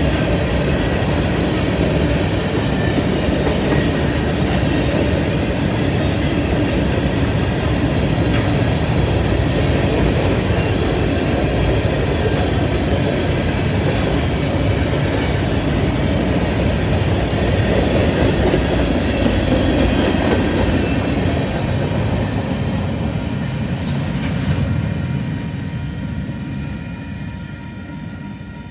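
BNSF freight train of covered grain hopper cars rolling past, a steady rumble of steel wheels on the rails. The noise fades over the last few seconds as the end of the train passes and moves away.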